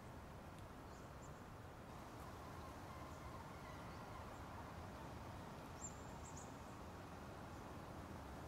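Quiet ambient piece: a steady, faint wash of low, even noise, with a few brief high chirps about six seconds in.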